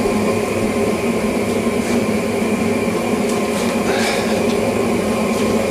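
Propane gas forge burner running with a steady rushing noise, with a few faint metallic ticks as the hot bar is twisted in the vise.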